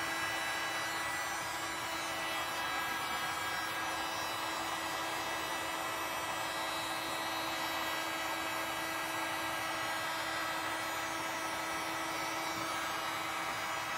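Electric heat gun running steadily, its fan blowing air with a constant whine over the rush of air, heating a flattened PVC pipe rib to soften it for bending.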